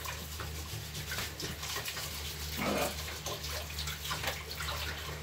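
Water running from a kitchen tap into a stainless steel sink as something is rinsed by hand, with small knocks and clinks.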